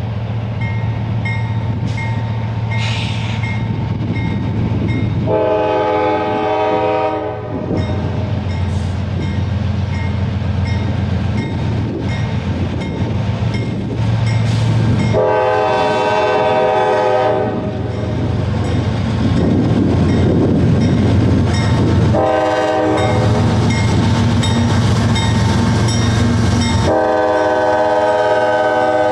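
Nathan K5LA five-chime locomotive air horn sounding long, long, short, long, the standard grade-crossing signal, over the steady rumble of a diesel locomotive and the clack of wheels on rail joints. The last long blast starts near the end.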